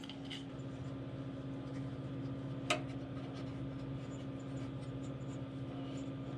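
A steady low hum, with one sharp click about two and a half seconds in.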